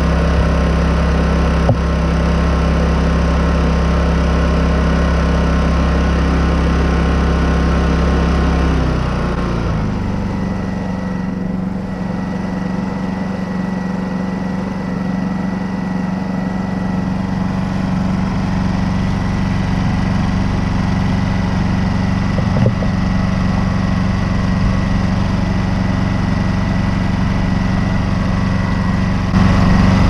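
Honda EU2200i inverter generator's single-cylinder four-stroke engine running. About nine seconds in, its engine speed drops and it settles into a steady, lower idle with no load, running smoothly after a spark plug fix for a rough eco-mode idle.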